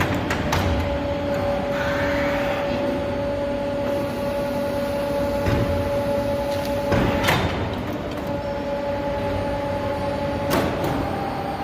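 CNC pipe bending machine at work: a steady machine hum with a few sharp clacks, the loudest about seven seconds in. The hum drops out for about two seconds around six seconds in.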